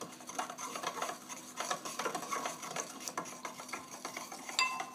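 Spoon stirring soy sauce and wasabi in a ceramic bowl: irregular scraping and light clicks of the spoon against the bowl, with a ringing clink near the end.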